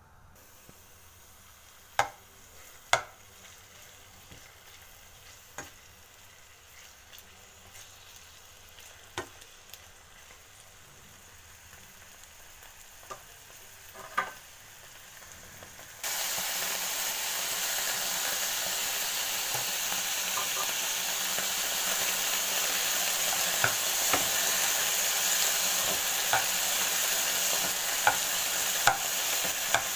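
Boneless chicken pieces frying in oil in a nonstick pan. For the first half there is only a faint crackle with a few sharp clicks. About halfway through, a loud, steady sizzle cuts in suddenly, with occasional small clicks.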